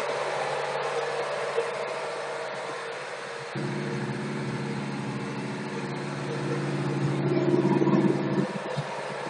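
Boat engine running steadily. About three and a half seconds in, a louder, deeper engine drone comes in, swells, and falls away near the end.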